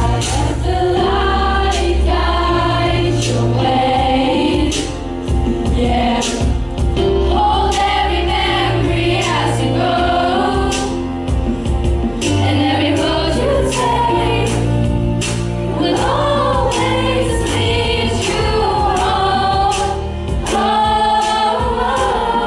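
A school choir of young voices singing with instrumental accompaniment: a steady bass line under the melody and regular drum hits.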